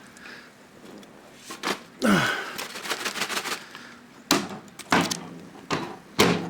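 Handling noise: a series of sharp clicks and knocks spread through the few seconds, with a short falling vocal sound about two seconds in.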